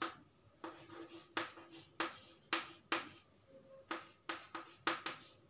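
Chalk writing on a chalkboard: about a dozen short, sharp taps and strokes at an uneven pace, each ringing briefly in the board.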